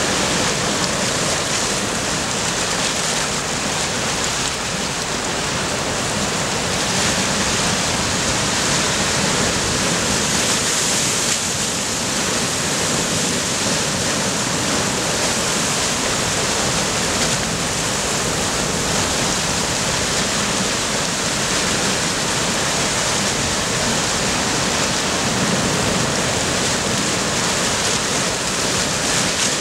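Sea surf breaking and washing over shoreline rocks: a steady rushing hiss that swells a little in places but never stops.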